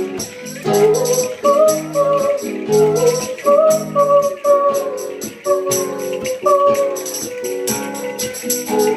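Live acoustic band: a woman sings a wavering melody over a strummed acoustic guitar, with a steady, evenly spaced high percussive beat.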